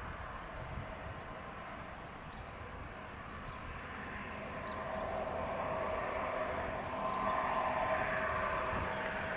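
Distant diesel locomotive approaching, its engine drone growing steadily louder from about halfway through. Small birds chirp briefly now and then above it.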